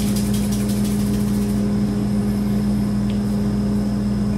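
Steady low hum of a running kitchen appliance motor, one pitched tone with overtones. Faint quick clicks come in the first second and a half.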